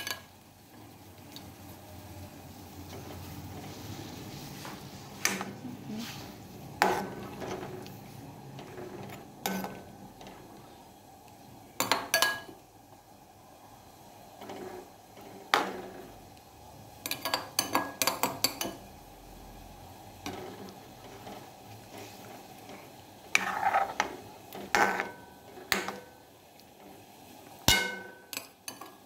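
Metal ladle clinking and scraping against the sides of a metal kadai while stirring a curry, in scattered strokes and short runs of quick clinks with a brief metallic ring.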